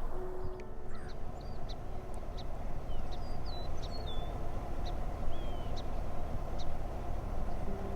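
Small birds chirping with many short, quick calls and whistles, over a steady low background noise.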